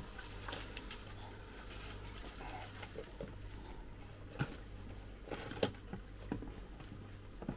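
Scattered crackles and rustles of hands pulling apart a potted plant's root ball, with soil and root bits dropping into a plastic tray, over a low steady hum.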